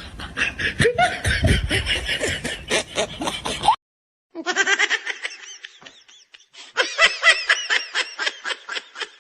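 Human laughter in quick, rapid pulses. It cuts off about four seconds in and starts again half a second later, sounding thinner and higher-pitched.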